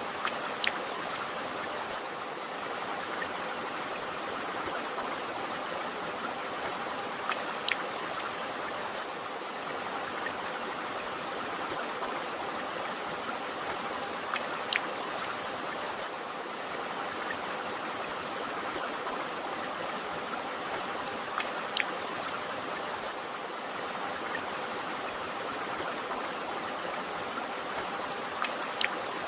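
A river or stream flowing steadily, a continuous rushing of water, with a few brief sharp clicks about every seven seconds.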